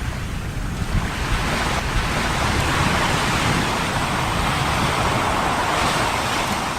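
Steady rushing noise, swelling about a second in and easing off near the end.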